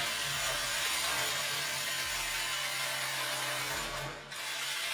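Cordless impact drivers, a Flex FX1371 and a DeWalt DCF887, hammering to break loose nuts set to 150 foot-pounds. It is a steady mechanical rattle that dips briefly about four seconds in, then carries on.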